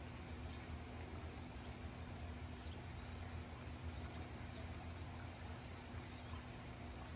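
Faint garden ambience: a steady low hum with scattered faint bird chirps.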